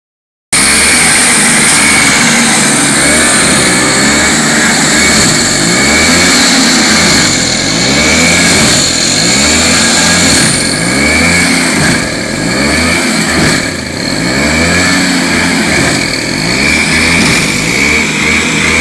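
Car engine revving over and over, its pitch rising and falling about once a second, with a steady high whine above it.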